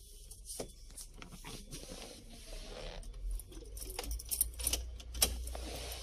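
Small clicks and light metallic rattles of tools, test leads and wiring being handled while checking a car's air-conditioning temperature control switch for power. The rattles come thickest and loudest about four to five seconds in, over a low hum.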